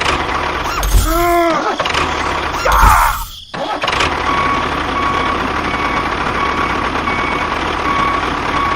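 A small motor running steadily, with a short rising-and-falling pitched sound about a second in and a faint beep repeating about twice a second from about halfway through.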